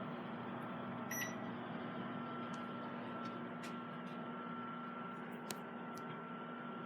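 Microwave oven running with a steady hum and a thin whine, with a short high beep about a second in and a few faint clicks.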